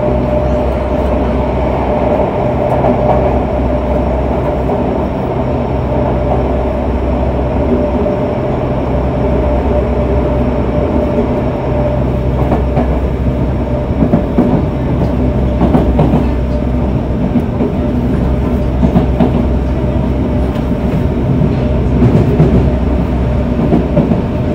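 Running sound of a Yokohama Municipal Subway 3000A train with Mitsubishi GTO-VVVF traction: a steady rumble of wheels on rail under a steady hum. A few louder clacks and rattles come around the middle and again near the end.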